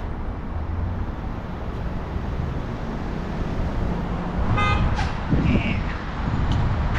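Road traffic at a busy intersection: a steady low rumble of car engines and tyres, with a short beep like a car horn about four and a half seconds in.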